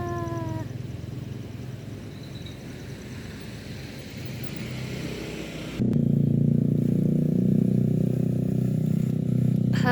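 Diesel locomotive passing: the end of a horn blast falling in pitch, then engine rumble. About six seconds in, a much louder, steady low engine drone cuts in suddenly, and a new horn blast starts right at the end.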